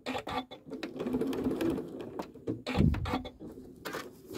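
Janome sewing machine stitching an appliqué edge, the needle running in rapid, even strokes over the motor's hum, easing off after a brief low thump a little past the middle.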